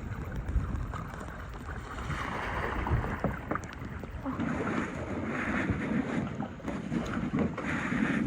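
Wind buffeting the microphone outdoors, with a rushing hiss that swells and fades several times.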